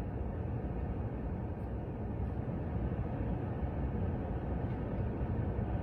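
Steady low rumble inside a car's cabin, with no distinct events.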